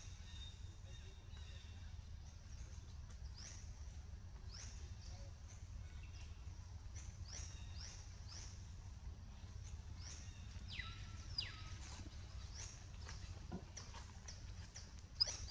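Faint birdsong: short high chirps repeating every second or so over a steady low background rumble, with a longer falling call about eleven seconds in. A sharp knock near the end.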